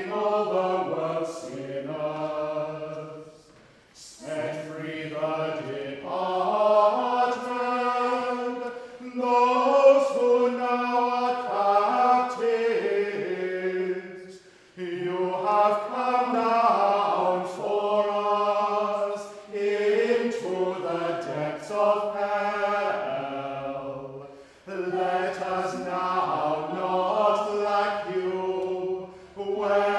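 Unaccompanied group of singers chanting a slow, plainsong-like melody in long phrases, with short breaks for breath about 4, 14 and 24 seconds in.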